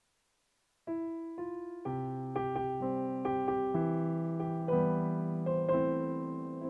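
Digital piano being played. About a second in come two single notes, then sustained chords with a melody over them, each left to ring.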